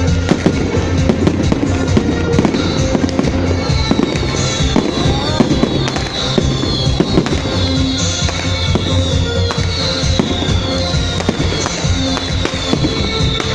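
Fireworks going off in a dense, continuous barrage of cracks and bangs, with music playing underneath and a run of short falling whistles repeating through the second half.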